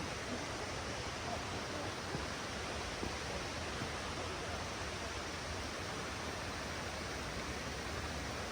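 Steady rush of flowing water, an even hiss with a few faint ticks in it.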